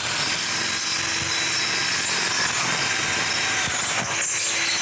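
Cordless drill running steadily as it drives a masonry screw through the aluminum door frame into concrete block.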